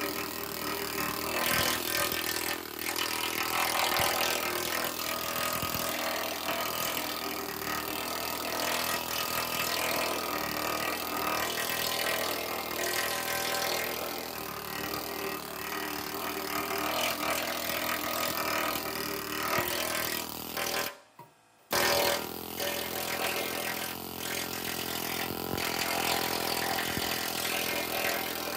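Pneumatic needle scaler hammering rust and scale off the steel frame of a trailer tandem, a dense, rapid rattle. It stops for under a second about two-thirds of the way through, then carries on.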